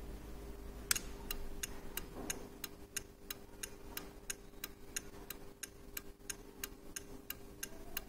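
A sharp click about a second in as the hazard switch is pressed, then the turn-signal flasher relay clicking steadily, about three clicks a second, as it switches the hazard lamps on and off. A faint steady hum lies underneath.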